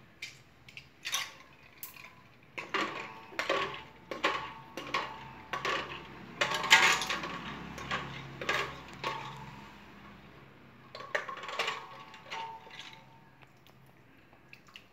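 Steel kitchen tongs clinking and knocking against a stainless steel pot and the plastic toys in it, a run of irregular metallic clanks with a brief ringing after the louder ones, pausing for about a second around ten seconds in.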